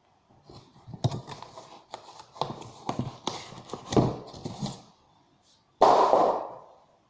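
Cardboard packaging and plastic wrap being handled inside a carton: an irregular run of light knocks, taps and rustles, then one louder scraping rustle about six seconds in.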